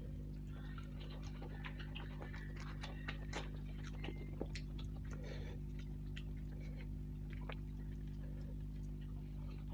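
Fingers tearing fried luchi bread and squishing it through thick curry gravy on a plate, with scattered small wet clicks and crackles, over a steady low hum.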